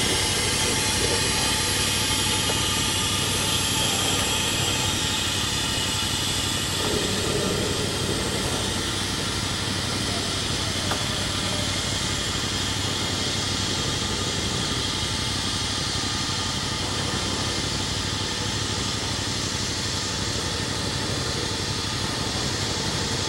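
Loaded freight train boxcars rolling steadily past close by: a continuous rumble and hiss of steel wheels on the rails.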